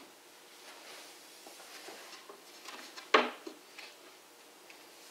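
Laminated particleboard bookcase panels being handled and shifted: light rubs and clicks, and one sharp wooden knock about three seconds in.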